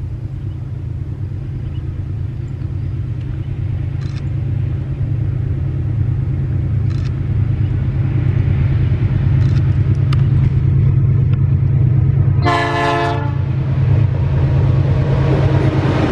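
Freight train's lead GE U23C and trailing diesel-electric locomotives approaching and passing, their low engine rumble growing steadily louder. A single short horn blast sounds about three quarters of the way in. Louder wheel and rail noise follows as the locomotives go by close.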